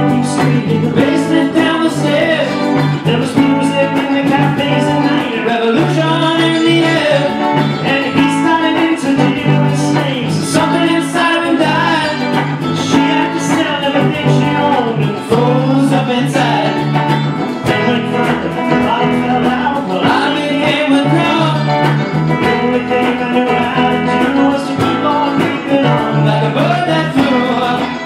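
A small band playing live: electric guitars and bass over a cajón beat, with a singing voice.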